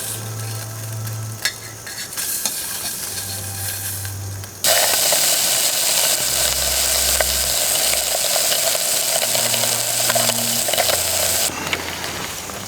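Steady hiss of a backpacking stove's burner running, cut in abruptly about four and a half seconds in and cut off just before the end, with faint low notes underneath at the start.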